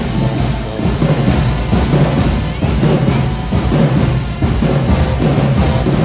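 High school marching band playing loud dance music: brass over a driving drum and bass-drum beat.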